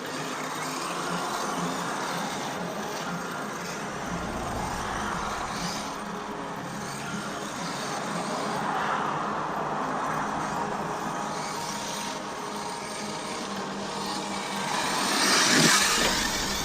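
Arrma Mojave 6S RC truck's brushless motor and drivetrain whining as it accelerates and backs off, rising and falling several times, loudest about fifteen seconds in.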